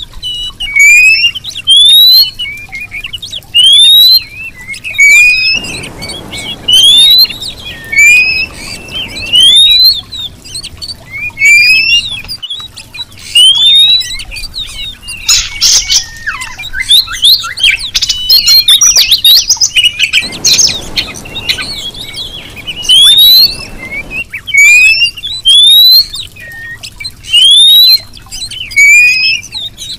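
Female oriental magpie-robin calling: a short rising whistle repeated about every second and a half, with a denser run of chirps and twitters about halfway through. It is a female's call to a male, played as a lure to set a male singing.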